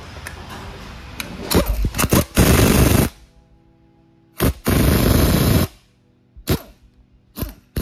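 Pneumatic impact wrench hammering on a nut on the front of an Eaton Fuller 10-speed truck transmission: a short rattle, then a burst of about a second, a brief blip, and a second burst of about a second. A few light metal clicks follow near the end.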